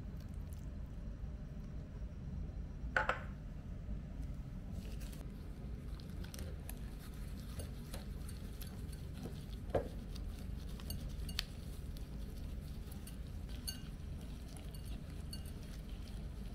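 Hands in disposable gloves rubbing and turning raw chicken pieces in a glass bowl: soft rustling and many small clicks, with a sharper knock against the glass about three seconds in and another near ten seconds. A steady low hum runs underneath.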